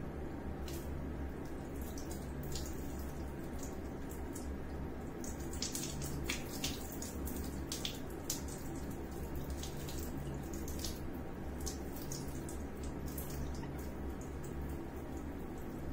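Water poured from a plastic dipper over a baby monkey, trickling off and dripping and splashing into a plastic bucket below. The splashes come thickest in the middle, over a steady low hum.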